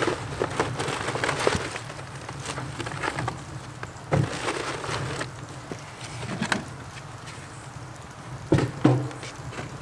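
Cardboard box and its paper packets being rustled and crinkled as they are handled and dropped into a steel burn barrel, with several sharp knocks, the loudest two close together near the end.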